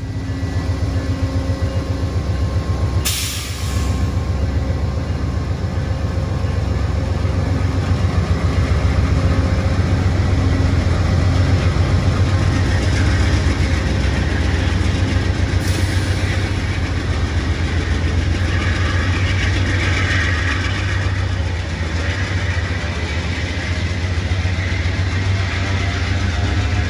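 Amtrak P42DC diesel locomotive running under power as its passenger train pulls away, a steady low engine rumble together with the rolling of the passenger cars. Two short bursts of hiss come about three seconds in and again near sixteen seconds.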